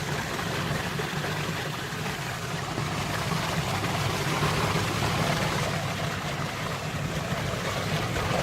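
Steady machine hum with an even rushing noise, unbroken throughout.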